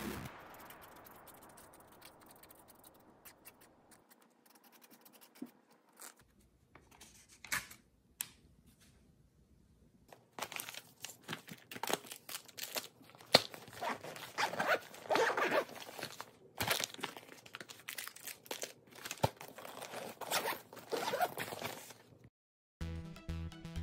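Hands packing a soft insulated lunch bag: bursts of fabric rustling, scraping and zipping through the second half, with a few faint taps and scratches before that.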